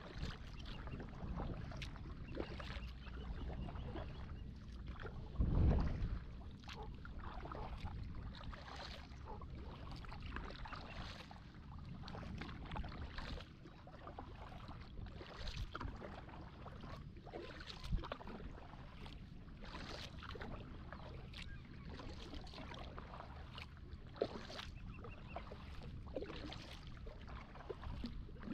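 Kayak paddle strokes dipping and splashing in the water at a steady pace, about one a second, over a low steady rumble, with a brief low thump about five seconds in.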